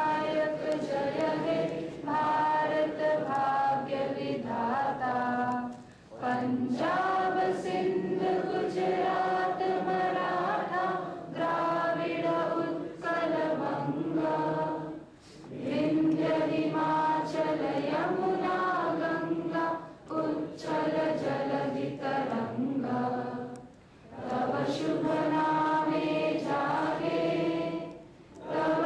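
A woman singing into a microphone in long, held phrases, with brief pauses between them.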